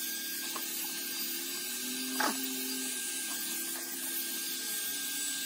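Electric hot air brush running: the steady whir of its fan motor under a rush of blown air, with a low steady hum and a thin higher whine. It cuts off at the very end.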